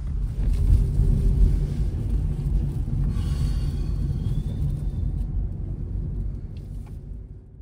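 Steady low rumble of a car driving, heard from inside the cabin, fading off near the end.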